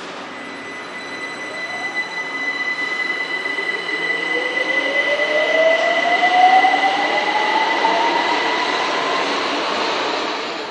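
BTS Skytrain electric train pulling away, its motor whine rising steadily in pitch as it speeds up, over a steady high-pitched tone.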